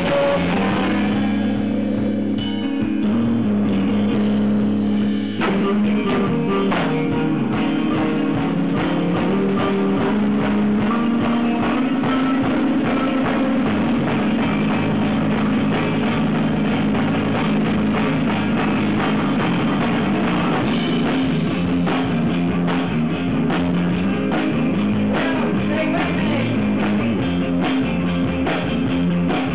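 Rock band playing at full volume on a Gretsch drum kit, bass guitar and guitar, with busy drumming throughout and a short break about five seconds in before the band carries on.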